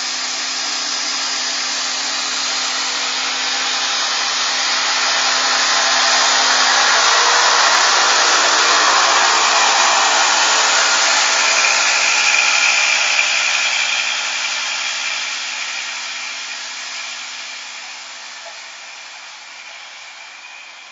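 Red regional trains passing close by on the track and moving off. A rush of wheel and running noise swells to a peak about halfway through, with a low engine hum under it at first, then fades steadily as the train draws away.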